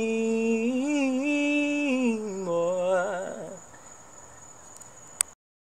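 A man's voice singing held, wavering notes without words, the closing melody of a worship song, fading out after about three seconds. Faint hiss with a thin high whine follows, then a click, and the sound cuts off abruptly.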